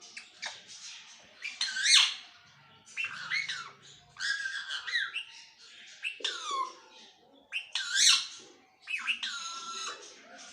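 Pet parrot talking and squawking in a string of short, screechy, gliding calls, with the loudest squawks about two seconds in and again near eight seconds.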